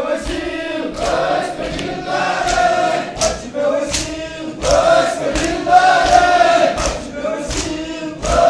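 A group of men chanting a Muharram lament (nauha) together in long sung phrases, led through a microphone, with sharp percussive beats falling between and over the phrases.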